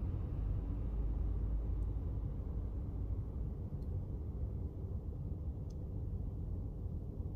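Steady low rumble of outdoor background noise, with a few faint clicks about two seconds apart.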